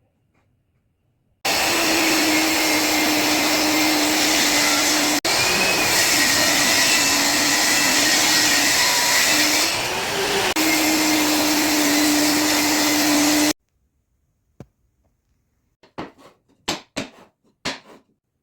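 A high-speed electric woodworking power tool running steadily with a whine. It starts and stops abruptly, and its pitch dips briefly as if loaded, toward the end of the run. A few sharp clicks follow near the end.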